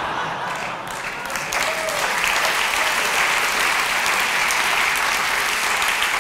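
Audience applause: many hands clapping. It builds over the first second and a half, then holds steady.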